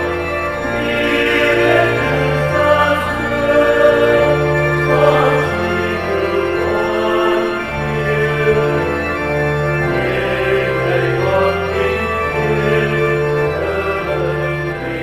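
Organ playing sustained chords over a bass line that steps to a new note every second or so, an instrumental passage of a hymn.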